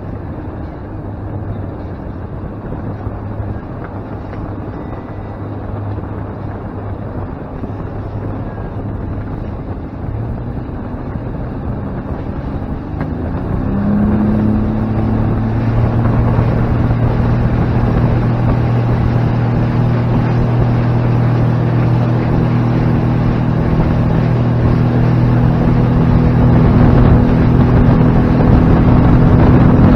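Outboard motor driving a boat, with water rushing past the hull. About halfway through, the engine note rises and gets louder as the throttle is opened and the boat picks up speed. It keeps climbing slowly toward the end, with wind on the microphone.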